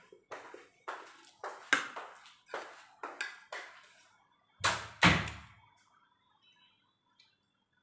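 Metal spoon and fork scraping and clinking against a ceramic plate while rice is scooped up, a few strokes a second. Then two loud thumps close together about five seconds in.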